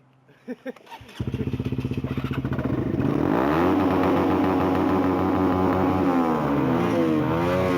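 Motorcycle engine starting up about a second in and running, the revs climbing and then rising and falling several times near the end as the throttle is worked.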